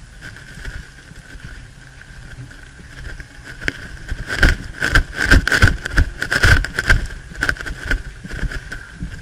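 Footsteps crunching through dry forest undergrowth, with gear and branches brushing and knocking against the body-mounted camera. There is a dense run of loud, irregular crunches and knocks in the middle, quieter at the start and end.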